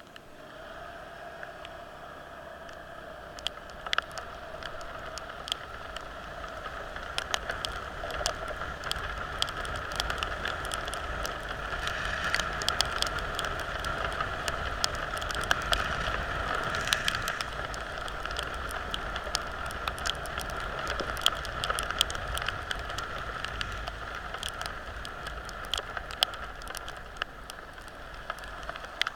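Heavy rain: many close raindrops ticking sharply over a steady hiss and hum, which swells towards the middle and eases a little near the end.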